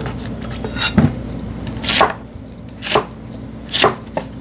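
Kitchen knife cutting through a Korean radish (mu) and striking a wooden cutting board: four main cuts about a second apart.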